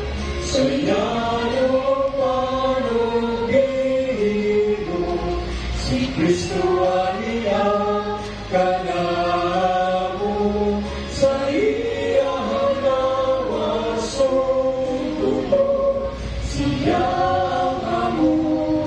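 A choir singing a slow hymn, several voices in harmony, in held phrases a few seconds long.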